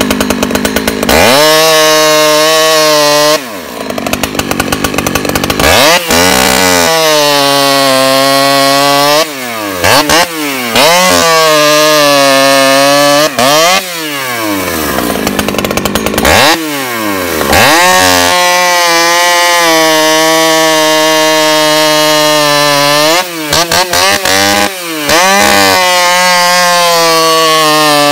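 Husqvarna two-stroke chainsaw revving up and cutting through a log at full throttle. The engine drops back briefly several times between long stretches of steady high revs in the cut.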